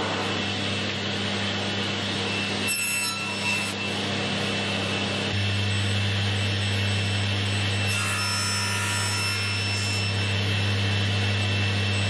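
Woodworking machine motors running with a steady hum: a drill press, then a table saw spinning its blade, which gets louder about five seconds in. A short knock near three seconds.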